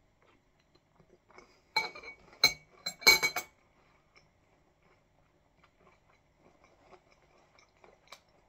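Metal spoon clinking against a glass bowl of oat-cluster granola and milk as the hard clusters are broken up: several sharp, ringing clinks close together about two to three seconds in, then faint scattered ticks.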